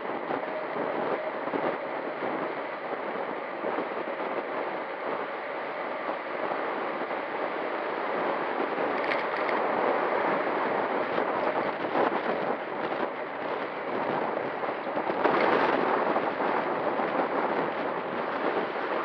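Steady rush of wind over the microphone of a handlebar camera on a moving road bike, mixed with road noise. It grows louder in the second half, with a brief surge near the end.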